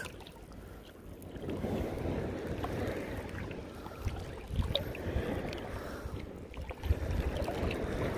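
Wind buffeting the microphone over water sloshing at the shoreline, the wash swelling and fading a couple of times, with a few faint clicks.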